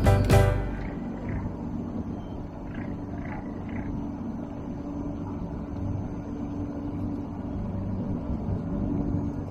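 Fishing boat's engine running with a steady low hum, after a music sting dies away in the first second.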